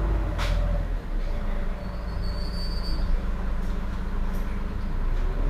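Heuliez GX 327 city bus idling at a standstill, its engine a steady low hum. A short hiss comes about half a second in, and a thin high tone sounds for just under a second in the middle.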